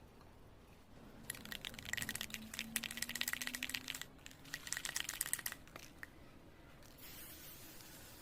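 Aerosol spray-paint can being shaken, its mixing ball rattling in a fast run of clicks for about four seconds, then a steady hiss of spraying starting near the end.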